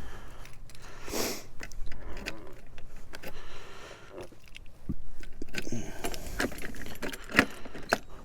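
Keys jangling amid a run of sharp clicks and knocks as a motorcycle's lockable hard luggage case is handled, with a short rustle about a second in.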